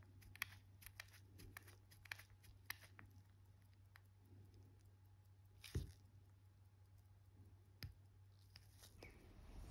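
Near silence with faint scattered clicks and light handling as a watch strap is picked out and handled, with two sharper knocks about six and eight seconds in, over a faint low hum.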